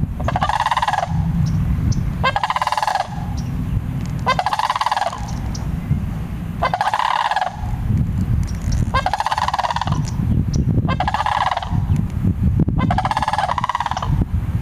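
Sandhill crane giving loud, rolling bugle calls, seven in a row about two seconds apart, with a steady low rumble underneath.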